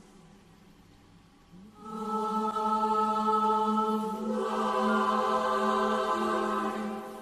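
Mixed-voice school choir singing a sustained chord, entering after a brief pause about two seconds in, with a steady low held note beneath the upper voices. The chord swells about four seconds in and fades near the end.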